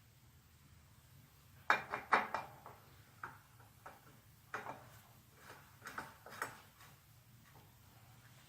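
Tools and parts clinking and knocking while being handled: a pair of sharp knocks about two seconds in, then a handful of lighter clicks scattered through the rest, over a faint steady hum.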